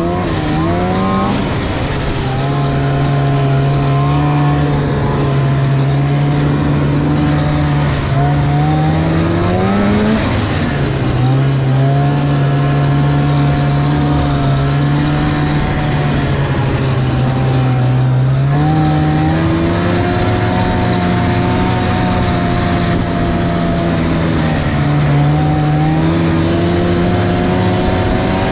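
Snowmobile engine running steadily under throttle. Its pitch rises around ten seconds in, drops, steps up again a little over halfway, and dips briefly near the end.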